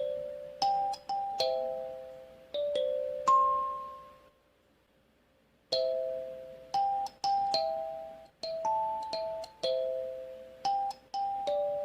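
An 8-key acrylic kalimba played as a simple melody: single plucked metal tines, each note struck sharply and ringing out as it fades. The notes ring clearly, with no dead tines. The playing stops for about a second and a half a little past the middle, then the melody starts again.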